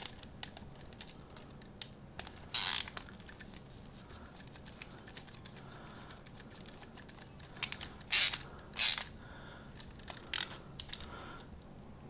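Ratcheting screwdriver clicking as it tightens the brass terminal screws of a duplex receptacle, a rapid run of light ratchet clicks with a few short, louder rasps.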